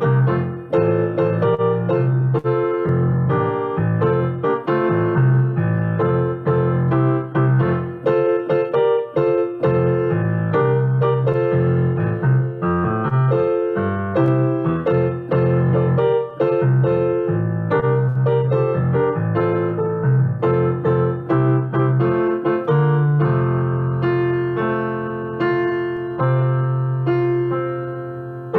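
Piano music: a continuous flow of chords and melody notes over sustained bass, with a held chord fading near the end.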